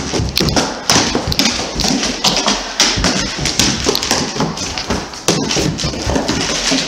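Great Dane's claws and paws tapping and thudding on a hardwood floor as it runs about: many quick, irregular taps and thumps.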